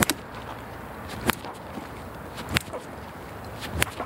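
Bat striking flipped balls in quick succession: four sharp cracks about a second and a quarter apart, one per swing of a five-swing drill.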